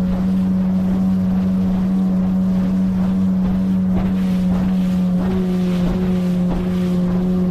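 A 9.8 hp outboard motor pushing an inflatable PVC boat along at steady speed: a constant drone with one strong low tone. A second, higher tone joins about five seconds in.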